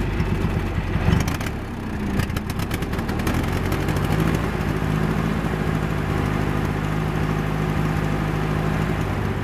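Craftsman GT6000 garden tractor's 18.5 hp twin-cylinder engine running. It wavers briefly about a second in and gives a short run of rapid ticking around two to three seconds in, then settles into a steady run. The owner puts the rough running at idle down to a carburetor that is out of adjustment.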